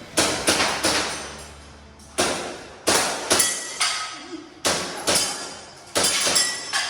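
Airsoft pistol firing in quick strings of two or three shots, with BBs striking steel targets that ring briefly after some hits.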